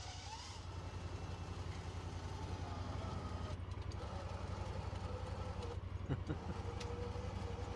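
A side-by-side UTV's engine idling steadily. From about four seconds in, a faint steady whine, typical of an electric winch straining on a cable against logs frozen to the ground, with one knock about six seconds in.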